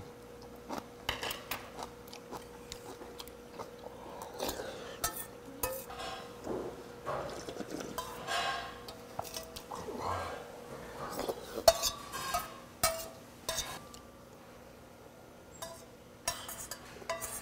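A person eating eel soup from a stainless steel bowl: chopsticks and spoon clinking against the metal bowl, chewing, and drinking the broth straight from the tipped-up bowl, with irregular sharp clinks scattered throughout.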